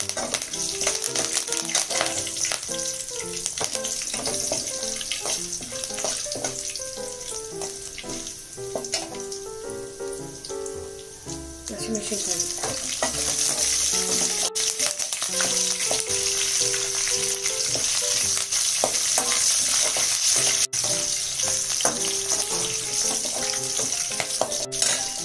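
Curry leaves, mustard seeds, dal and ginger sizzling in hot oil in an aluminium kadai during a tadka. The sizzle gets louder about halfway through, when slit green chillies go into the oil.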